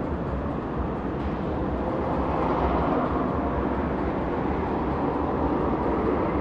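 Outdoor city ambience: a steady, noisy low rumble with no distinct events, swelling a little from about two seconds in.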